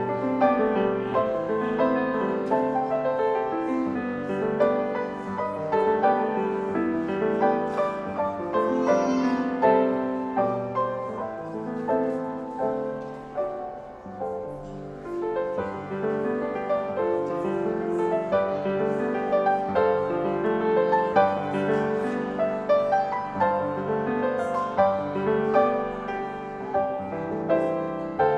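Piano playing a slow classical-style piece, notes struck and left to ring into one another, with a brief quieter passage about halfway through.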